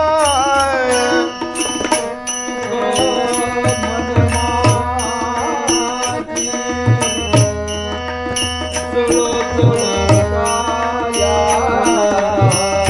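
Harmonium and tabla playing the instrumental interlude of a Marathi abhang, with small hand cymbals (taal) striking a steady beat. A sung phrase ends about a second in.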